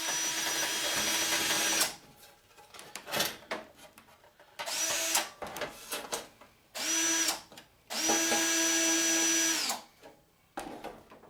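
Power drill running in four bursts, two long and two short, its whine rising as each burst starts and dropping as it stops, with small clicks and knocks in between.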